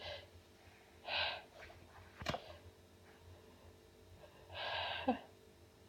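A woman's sharp gasping in-breaths building up to sneezes, with one short, sharp sneeze a little over two seconds in and another long gasping in-breath near the end.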